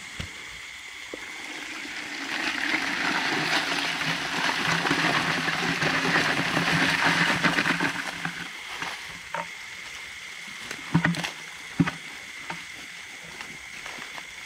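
Muddy water and rice-field crabs poured from a plastic bucket into a mesh net bag, the water splashing and draining through the mesh in a steady rush that builds about two seconds in and dies away about eight seconds in. A couple of sharp knocks follow a few seconds later.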